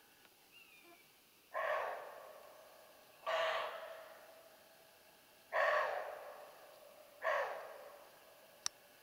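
Roe deer barking: four short, harsh barks about two seconds apart, each starting sharply and fading away.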